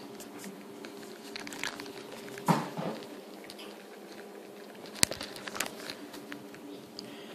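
Handling noise from a phone being moved about: scattered clicks, rustles and crunching knocks, two louder ones about two and a half and five seconds in, over a steady low hum.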